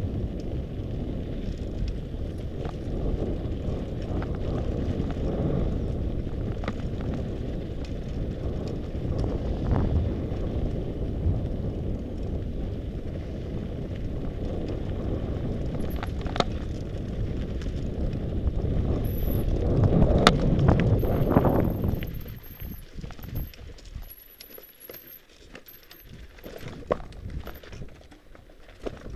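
Mountain bike riding down a dirt and gravel trail: tyres crunching on gravel, with heavy wind on the microphone that peaks just before it drops away about three-quarters of the way through. After that, scattered clicks and rattles come from the bike over rocky ground.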